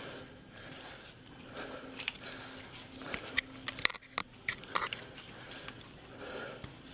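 Close rustling and sharp clicks of a police officer's gear and clothing rubbing against a body-worn camera while advancing with a rifle, the clicks thickest in the middle.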